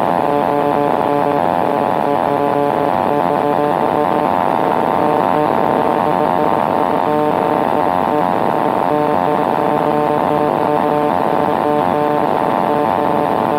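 Kitfox light aircraft's piston engine and propeller running at a steady speed, heard from inside the cockpit.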